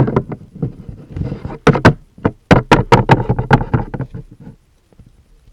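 Irregular sharp knocks and taps in quick succession, like handling noise against the recording phone, dying away near the end.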